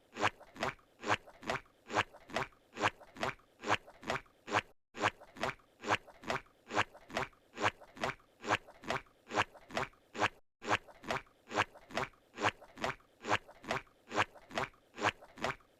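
Cartoon sound effect of Squidward's footsteps: even, regular steps about two a second. A brief break every five to six seconds marks where the loop restarts.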